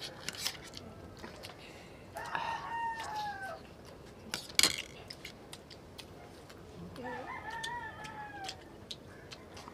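A rooster crowing twice, about five seconds apart, each crow a long call that falls at the end. Spoon and utensil clinks against a metal tray and plates, the loudest a sharp clink just before the middle.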